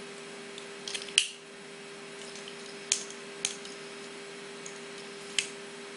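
Scattered sharp plastic clicks as a Transformers Combiner Wars Air Raid figure in arm mode is handled and its joints are moved: a few close together about a second in, then single clicks near three seconds, three and a half seconds and five and a half seconds. A steady faint hum runs underneath.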